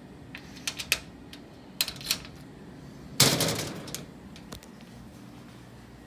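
A handful of sharp clicks in the first two seconds, then one louder clunk about three seconds in with a short rattling tail.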